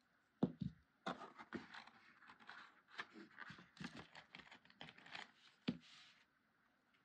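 Stiff cardstock being handled and pressed together: papery rustling and scraping with quick clicks and taps, and two sharper knocks, one about half a second in and one near the end.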